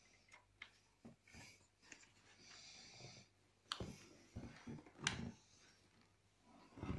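Faint handling of a baby stroller during assembly: soft rustling of the quilted seat fabric and a few sharp clicks from its plastic and metal frame parts, the two loudest a little over a second apart.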